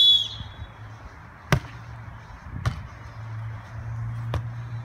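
A short blast of a referee's whistle, then three sharp slaps of hands striking a beach volleyball, a second or more apart: the serve, the pass and the set opening a rally.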